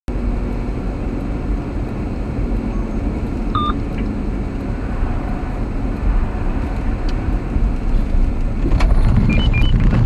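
Steady engine and tyre rumble inside a truck's cab, with a brief beep a few seconds in. Near the end the rumble grows louder and rougher, with a few knocks, as the truck slides off the glare-iced road onto rough snowy ground.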